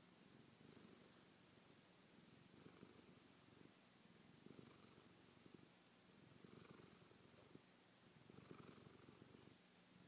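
Domestic cat purring softly, the purr swelling and fading about every two seconds with its breathing.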